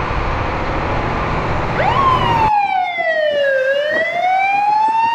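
Fire engine siren wailing: the tone sweeps up sharply about two seconds in, falls slowly, then climbs again near the end. Under its start is a rumble of engine and wind that cuts off abruptly.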